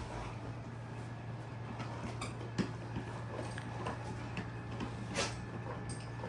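Dog chewing a bone: irregular clicks and crunches of teeth on bone, the sharpest about two and a half and five seconds in, over a steady low hum.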